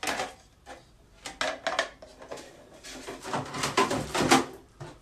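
A cable storage box being handled: knocks, clatter and scraping of the box and its lid, in three bunches, the loudest about three to four and a half seconds in.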